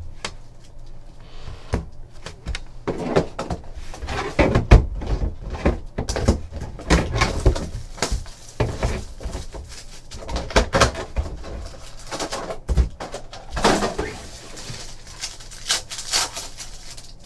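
Crinkling and rustling of plastic wrapping as a sealed trading-card box is handled and unwrapped, with a foil card pack torn open near the end; irregular crackles and rips.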